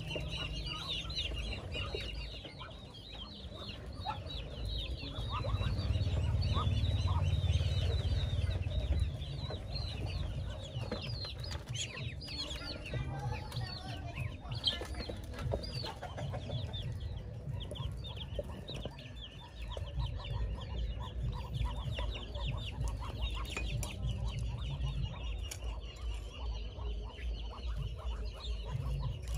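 A poultry flock calling: clucking mixed with many short, high chirps that keep up throughout. Underneath is a low rumble, loudest from about six to nine seconds in.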